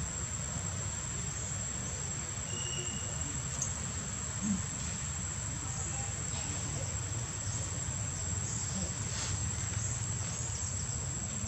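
Steady high-pitched insect drone holding one shrill tone, over a low steady rumble, with a few faint short clicks.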